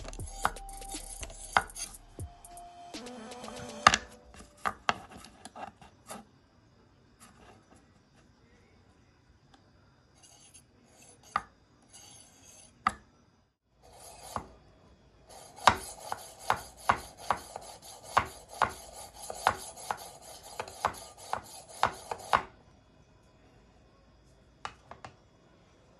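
Hand-held sharpening stone drawn along a steel knife edge in repeated scraping strokes. A few scattered strokes come first, then a steady run at about two strokes a second for some seven seconds.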